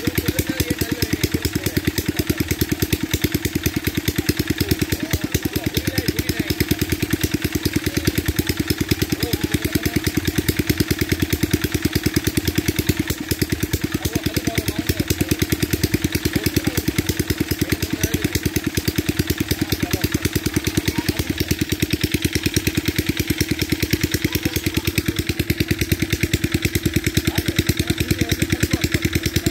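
Small engine of a water pump running steadily, with rapid even firing pulses and no change in speed.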